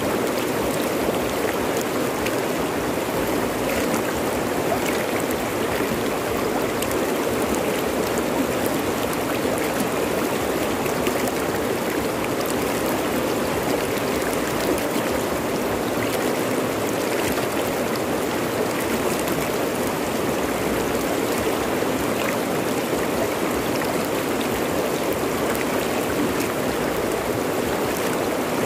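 Fast-flowing river running over rocks: a steady, even rushing of water with small splashes scattered through it.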